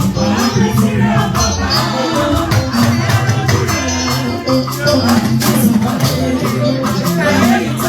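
Music with a shaker or rattle keeping a steady, even beat over held instrumental notes.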